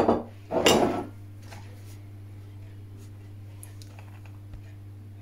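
Kitchen things being handled on a wooden table: a sharp knock, then a short scraping clatter about half a second later. After that there is only a steady low hum.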